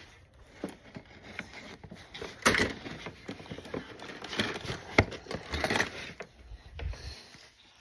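Objects being handled and rummaged through: irregular rustling and scraping with scattered clicks, a louder rustle about two and a half seconds in and one sharp knock about five seconds in.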